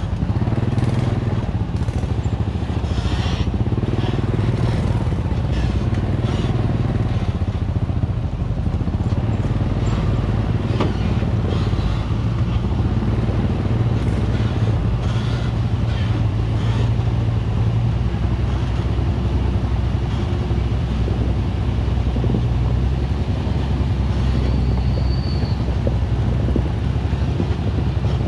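Steady, low engine noise from a truck loaded with acacia logs climbing a muddy forest track, mixed with the engine of the vehicle following close behind. The pitch swells and falls a few times in the first several seconds.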